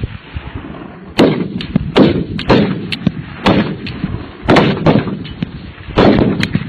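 Rifle gunfire at a shooting range: about a dozen sharp shots at irregular intervals, some loud and close, others fainter, each trailing a brief echo.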